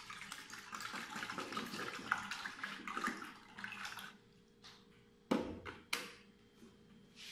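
Whole milk pouring from a plastic jug into a pot already full of milk: a splashing stream for about four seconds, then two sharp knocks.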